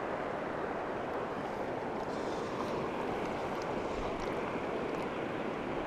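Shallow river current rushing steadily over rocks.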